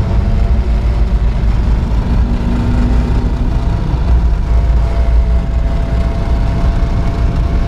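Off-road vehicle driving over snow, heard from inside the cab: a loud, steady low rumble of engine and drivetrain.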